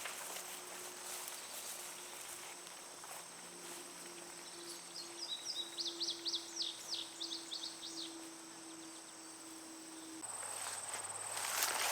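Insects trilling steadily, with a small bird singing a quick run of about a dozen chirps in the middle. Near the end, footsteps start swishing through tall weeds.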